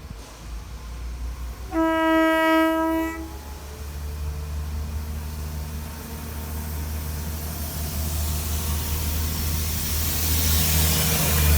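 Train horn sounding one steady note for about a second and a half. Then the train's low rumble and rail noise build steadily as it approaches.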